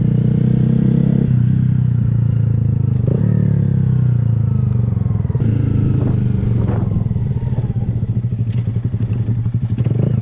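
Honda Grom's 125 cc single-cylinder engine running through an aftermarket Kemimoto exhaust while riding. The engine note rises and falls several times with the throttle, then drops to a slower, lumpy beat over the last couple of seconds.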